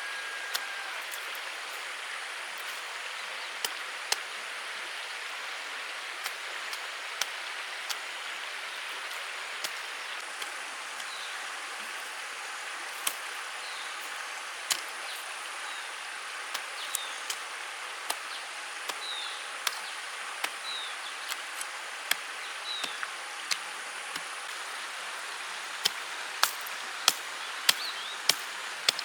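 Steady rain hiss with irregular sharp ticks and taps throughout, a few louder ones near the end.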